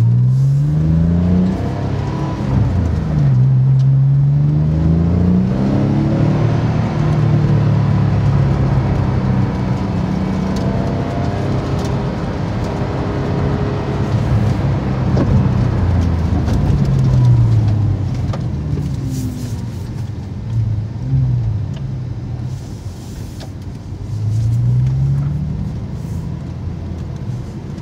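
Porsche 911 (997) flat-six engine with a Borla exhaust system, heard from inside the cabin while driving. The exhaust note climbs in pitch under acceleration several times and drops at the gear changes, with a steadier stretch of cruising in the middle.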